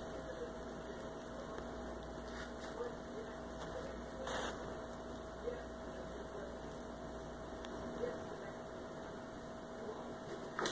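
Steady electrical hum of a quiet room, with a few faint soft scuffs from a cat moving about a carpeted cat condo, the clearest about four seconds in.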